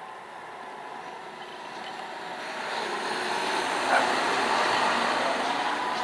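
John Deere 6250R tractor driving past on a road: its six-cylinder diesel engine and tyre noise grow louder, peak about four seconds in, then begin to fade.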